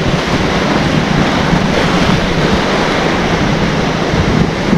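Loud, steady wind rushing and buffeting against the microphone, a rough rumbling roar with no let-up.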